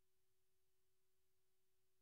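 Near silence, with only a faint steady single tone and no sound from the scene.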